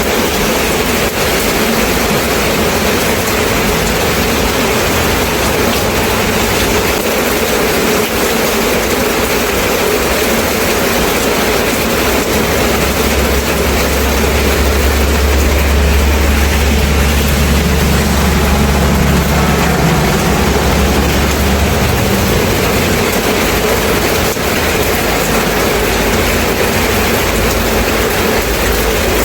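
Rain falling steadily, an even hiss. A low rumble joins about twelve seconds in and stops about ten seconds later.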